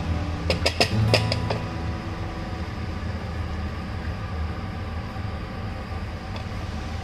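A wooden spatula knocks and scrapes against a nonstick pan as masala-coated boiled eggs are turned, with several quick knocks in the first second and a half. This is followed by a steady hiss from the frying pan.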